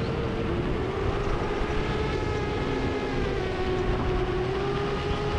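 8-inch long-range FPV quadcopter's Brother Hobby 2806.5 1460KV motors spinning 7-inch props in cruise: a steady hum whose pitch wavers slightly, with wind rumble underneath.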